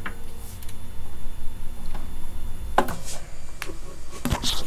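Clicks and knocks of the line winder's counter wheel and arm being set against the line spool, with a louder knock about three seconds in and two more near the end, over a low steady hum.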